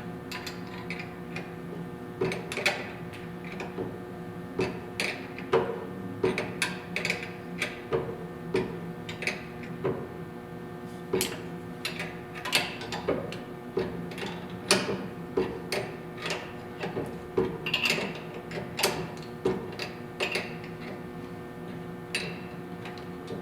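A nylon lock nut being run onto the return-spring shaft of a Delta drill press with a hand wrench: irregular sharp metal clicks, about one or two a second, over a steady hum.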